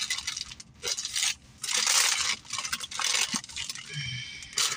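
Paper sandwich wrapper crinkling and rustling in irregular bursts as a breakfast sandwich is unwrapped and handled.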